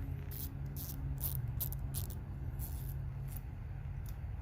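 A 1/4-inch drive ratchet being handled: short, irregular scratchy clicks, about a dozen in the few seconds, over a steady low hum.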